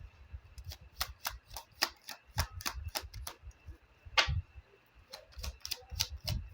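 Lenormand cards being handled, shuffled and laid on a table: an irregular run of sharp clicks and soft taps, two or three a second, with one louder snap about four seconds in.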